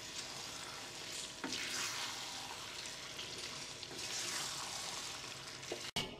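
Beef stroganoff sizzling in a frying pan while a wooden spoon stirs it, a steady hiss with a few soft knocks. It cuts off abruptly near the end.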